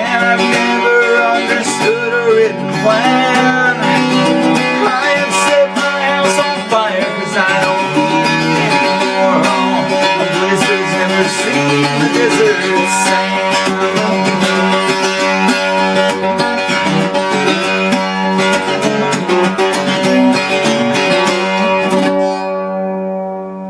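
Octave mandolin, an Arrow built by Paul Lestock and freshly strung, played solo in an instrumental passage: a picked melody over ringing strings. The sound fades away near the end.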